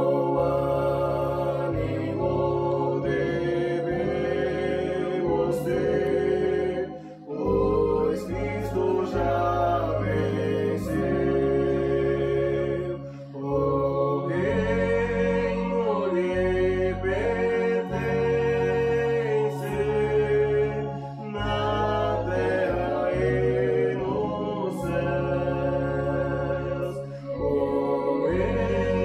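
A small group of voices singing a Congregação Cristã hymn in unison with a two-manual electronic organ accompaniment, in long held phrases with short breaks between lines.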